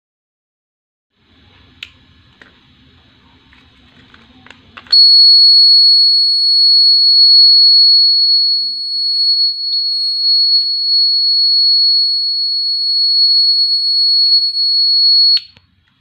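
Faint handling clicks, then the piezo buzzer of a 9-volt DIY burglar alarm circuit sounds one loud, steady, high-pitched tone for about ten seconds and cuts off suddenly. The alarm is triggered: its clothes-peg contact switch is closed with no card between the contacts.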